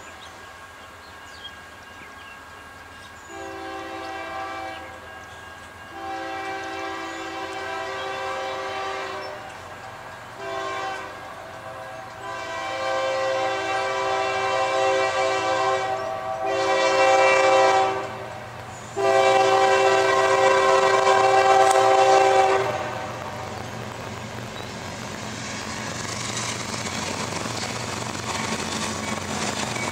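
A CSX ES40DC diesel locomotive's multi-chime air horn sounding the grade-crossing pattern: two long blasts, a short one, then further long blasts, the last ending about 23 seconds in. After that the rumble of the locomotive and its wheels on the rails grows louder as the train draws near.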